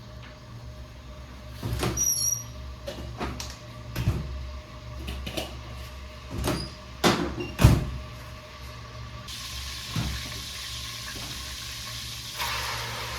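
Cookware and utensils knocking and clattering, about eight sharp knocks, one with a brief squeak, over a low steady hum. From about nine seconds in a steady hiss of food sizzling in hot oil starts, growing louder and fuller near the end.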